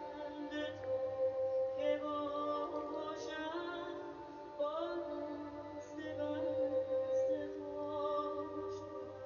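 A woman singing a slow, melismatic melody, her phrases opening with rising glides, over bowed strings (violins and cello) holding sustained notes.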